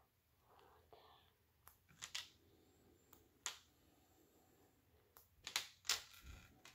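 Faint clicks and taps of small plastic Lego pieces being handled and pressed together, a handful of sharp clicks, more of them in the second half.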